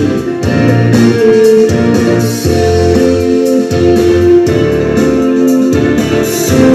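Instrumental background music with held notes over a low bass line, the chords changing about once a second.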